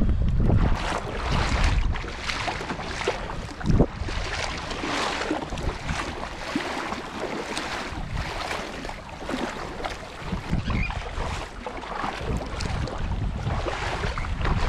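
Paddle strokes splashing through choppy seawater as a sit-on-top fishing kayak is paddled, a swoosh about once a second. There is a single sharp knock about four seconds in. Wind buffets the microphone at the start and again near the end.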